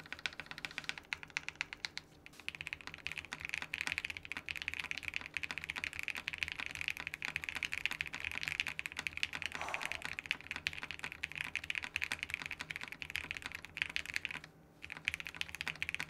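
Typing on a Capsule custom mechanical keyboard with Irene linear switches, an FR4 plate and ABS keycaps, built with mid foam but no bottom or PE foam. The keystrokes clack in a rapid, continuous run with a short pause near the end, a sound the builder likens to a polycarbonate plate.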